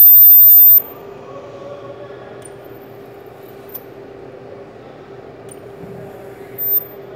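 Handheld ultrasonic plastic welder pressed against a plastic tank, giving a loud, piercing high-pitched squeal for just under a second at the start and a second, shorter squeal near the end. A steady low hum runs between the bursts.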